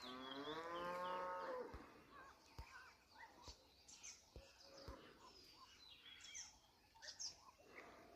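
Birds chirping throughout. It opens with one long, low call lasting under two seconds, followed by a few soft knocks.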